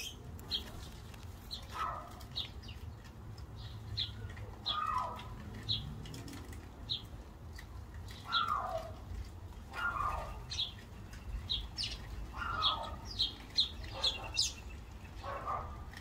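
House sparrows chirping at the feeders: short high chirps, one or two a second, with a lower call sliding down in pitch every couple of seconds.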